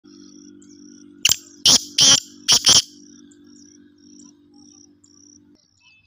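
Black francolin calling: one loud, harsh call of five grating notes in quick succession, starting about a second in. Insects chirp faintly and steadily behind it.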